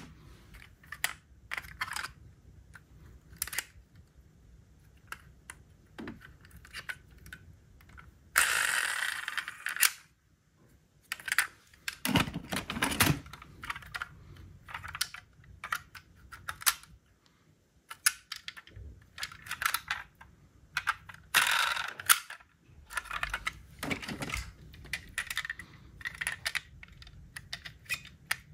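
Diecast model toy cars being handled and rummaged in a cardboard box: irregular small clicks and clacks of metal and plastic. There are two longer scraping rustles, one about eight seconds in and a shorter one around twenty-one seconds in.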